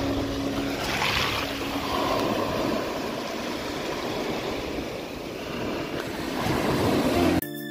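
Sea waves breaking and washing onto a shore in a steady rush of surf, with a louder wash about a second in. Music cuts in abruptly near the end.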